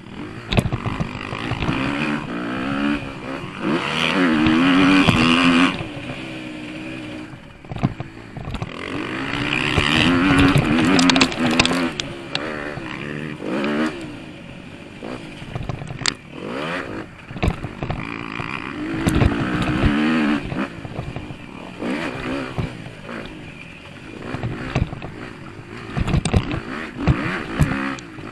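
Motocross bike engine revving up and easing off again and again as it is ridden around a dirt track, the pitch rising and falling with the throttle. Sharp knocks and rattles from the bumps come through, more often near the end.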